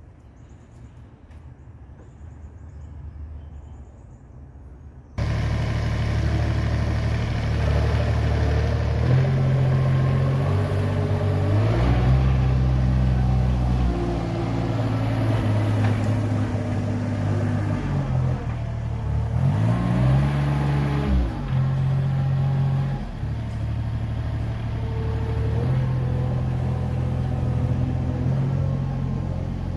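Skid steer engine running under load, its speed rising and falling as the machine works. About five seconds in, the sound jumps abruptly from a quieter low hum to the full loud engine.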